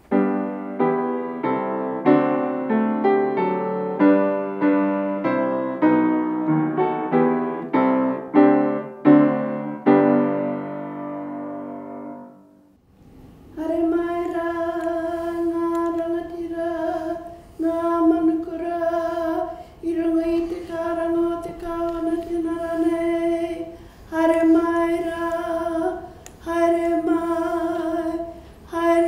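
Upright piano playing a run of full chords, fading out about 13 seconds in. After a brief pause, one voice takes over unaccompanied, chanting in long held notes at nearly one pitch with short breaks every couple of seconds.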